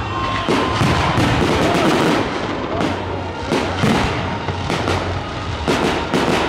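Aerial fireworks shells bursting overhead: a continuous run of sharp bangs and crackles, about two a second, with music playing underneath.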